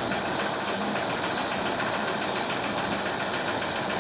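Steady background machine noise: an even hiss with a low hum that does not change.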